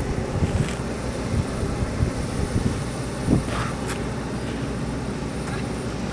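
Steady low rumble of aircraft engines running, with a few scattered knocks and a short thump about three seconds in.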